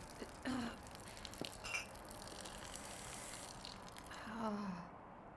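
Steady hiss of a woman urinating on the ground, which cuts off about five seconds in. A short falling groan from her comes just before it stops.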